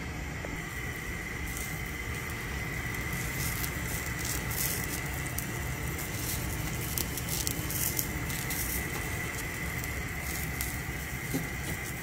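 Pot of water at a rolling boil on a gas stove: steady bubbling and crackling, with a faint steady high tone underneath.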